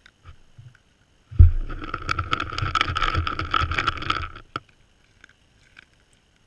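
Whitetail buck's muzzle against the GoPro housing. A loud knock is followed by about three seconds of dense scraping and crackling right on the camera, ending with a click.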